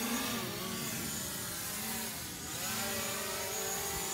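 DJI Mavic Pro quadcopter's propellers whirring as it hovers low and descends, the pitch of the buzz wavering up and down and dipping briefly about halfway through.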